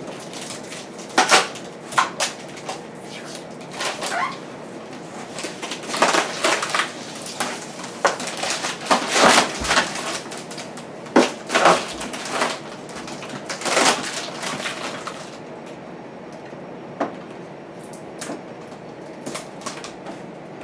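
Protective plastic film being peeled and torn off a stainless steel appliance panel, crackling in irregular bursts for about fifteen seconds, then only a few scattered ticks.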